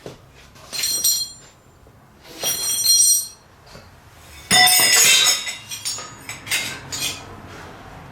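Aluminum computer heat sinks clinking and clattering against each other as they are handled and piled, in several bursts with a metallic ring; the loudest clatter comes about halfway.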